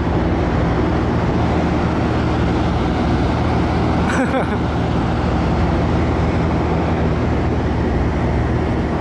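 Diesel engine of a Hitachi excavator, a Zaxis 450, running steadily with a low drone.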